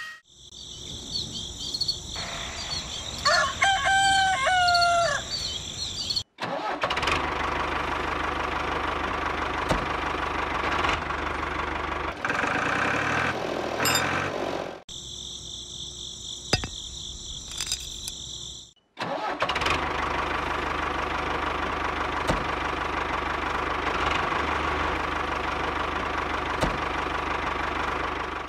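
A motor running steadily for two long stretches, with a short drop in the middle. In the first few seconds a rooster crows over a high, steady buzzing, and the buzzing returns briefly between the two stretches of motor sound.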